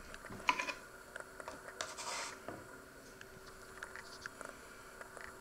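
Small kitchen handling sounds: a table knife knocking and scraping in a plastic cream-cheese tub, with a sharper knock about half a second in and a short scrape about two seconds in.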